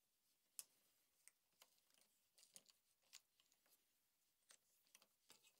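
Near silence with faint, irregular clicks and ticks as a Phillips screwdriver turns a small bolt into a metal handlebar crossbar mount.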